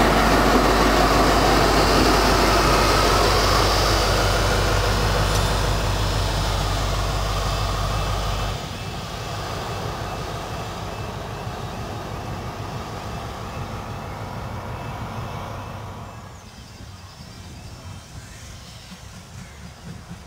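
First Great Western High Speed Train (InterCity 125) passing close by, its coaches rumbling over the track with the rear Class 43 power car's diesel engine humming. The low engine hum cuts off suddenly a little over eight seconds in, and the train noise then fades as it moves away.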